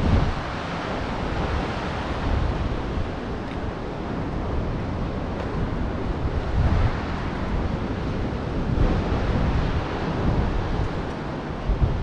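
Steady rush of ocean surf breaking on the shore, mixed with wind that buffets the microphone in gusts every few seconds.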